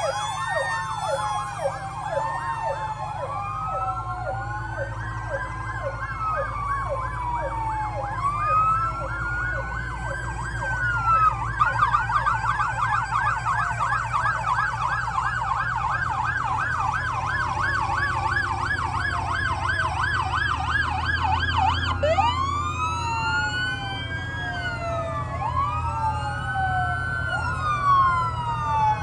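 Several fire-apparatus sirens sounding at once as the vehicles pass slowly: overlapping rising and falling wails, with a rapid yelp from about a third of the way in until two thirds through, when fresh wails start up. The low rumble of the truck engines runs underneath.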